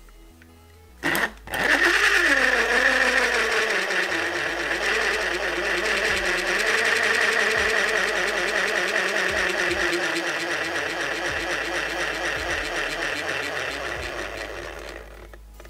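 Battery-powered toy stand mixer switched on with two clicks about a second in, then its small electric motor and beater whirring steadily. The pitch sinks over the first couple of seconds as the thickening slime loads the motor, and the mixer stops near the end.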